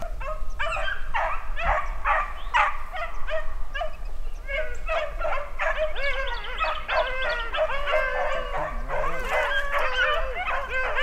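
A pack of beagles baying while running a rabbit's track: several hounds' voices overlap, scattered at first and thickening into a full chorus about halfway through. The pack is on a hot track and driving the rabbit.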